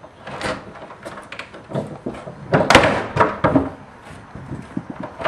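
A wooden house door being opened and pulled shut, a string of knocks and thuds with the loudest about halfway through.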